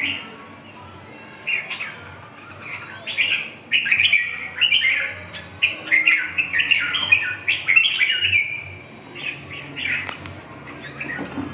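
Caged red-whiskered bulbuls singing in quick, chattering phrases that start about a second and a half in and come thickest in the middle, with one sharp click about ten seconds in.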